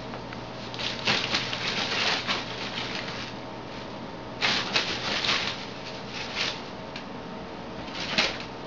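Cats play-fighting: spells of scuffling and quick paw swats, one about a second in, another about four and a half seconds in, and a short sharp one near the end, over a steady room hum.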